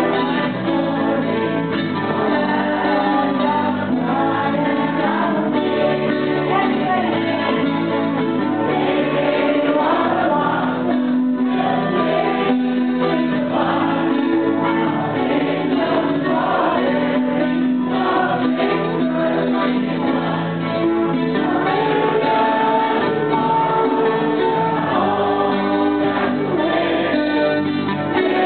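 A large group of adult men and women singing a graduation song together as a choir, on slow, long-held notes.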